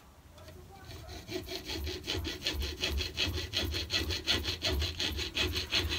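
Hacksaw cutting through a cast pewter sprue clamped in a bench vice, in steady, evenly repeated strokes that start about a second in.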